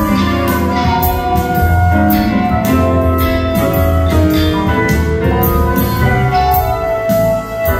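Live rock band playing, heard from among the audience: guitar and piano over a steady drum beat and bass notes.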